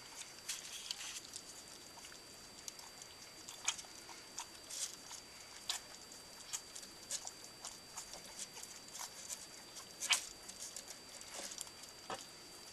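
A litter of 16-day-old Cardigan Welsh Corgi puppies eating their first meal from a shared round bowl: irregular wet smacking, lapping and small clicks as they nuzzle at the food.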